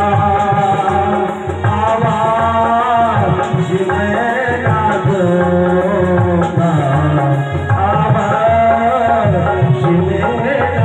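Live Hindi film song with a male singer, backed by a naal hand drum keeping a steady rhythm, Indian banjo and electronic keyboard.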